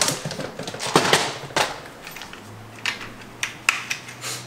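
Sharp plastic clicks and knocks from a carburetor jet-kit case being handled and its lid opened, the small jets shifting in its compartments; the clicks come in a cluster near the start and again about three seconds in.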